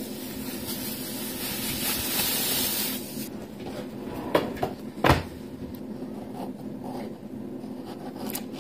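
Nylon puffer jacket rustling close against the microphone for about three seconds. Then come two sharp knocks a little under a second apart, the second louder, and a few lighter taps, over a low steady hum.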